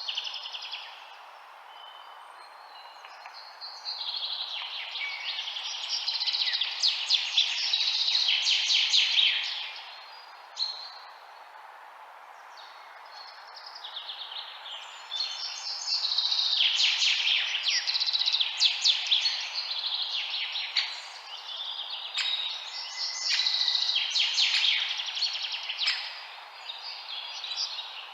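Several songbirds chirping and trilling together in bouts lasting a few seconds, over a steady background hiss.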